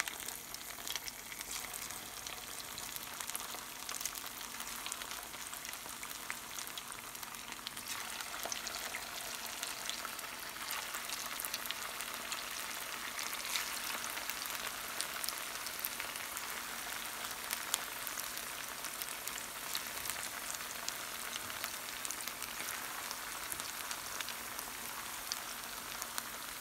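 Aval vadai (flattened-rice fritters) deep-frying in well-heated oil in a pan: a steady crackling sizzle. It grows fuller from about eight seconds in, as more patties go into the oil.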